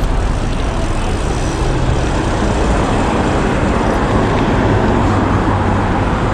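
Street traffic: cars and buses running nearby on a city road, with a steady engine drone under the noise of tyres on the road.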